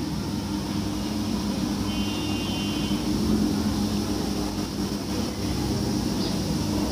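A steady low hum of background noise, like a small motor or fan, with no speech.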